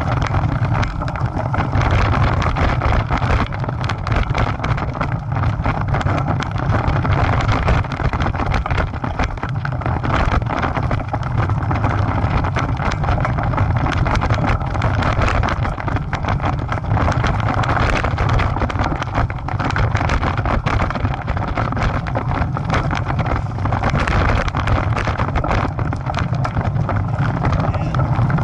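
A bicycle riding over a rough dirt single-track trail: the tyres rumble steadily over the ground, the bike and camera mount rattle with constant small clicks, and wind buffets the microphone.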